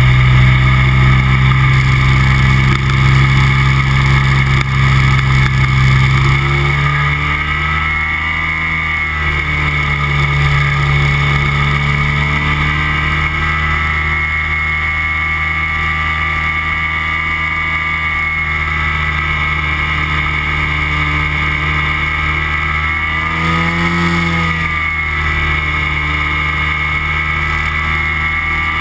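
Flex-wing microlight trike's engine and propeller running in flight; the engine note drops about six or seven seconds in as power is eased back, with small rises and falls in pitch later on, as the trike descends toward a landing on the ice.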